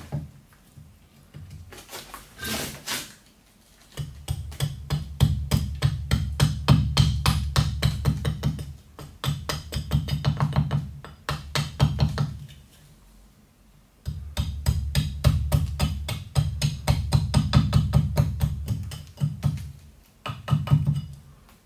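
A carving axe chopping a wooden spoon blank held upright on a chopping stump: quick, light strokes several a second, each a sharp knock with a dull thud from the blank against the stump. The chopping comes in two long runs with short pauses between.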